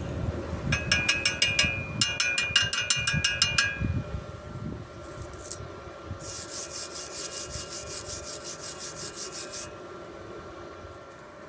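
Quick back-and-forth scraping of a hand tool on steel, with a metallic ring, about six or seven strokes a second. It comes in two loud runs in the first four seconds, then a softer run later.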